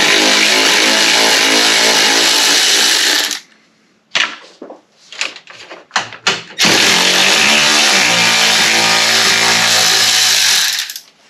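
Cordless power tool spinning a 10 mm socket to back out bolts: two steady runs of about three to four seconds each. Between them come a few short clicks and knocks of handling.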